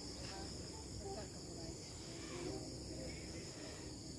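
Crickets and other night insects chirring in a steady, high-pitched chorus.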